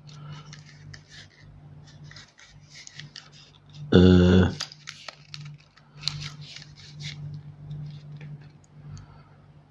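Plastic housing of a Nokia 6150 mobile phone giving faint scratchy creaks and clicks as it is handled and turned in the hand: the loose play that the owner says it has somewhere. About four seconds in, a short loud pitched buzz.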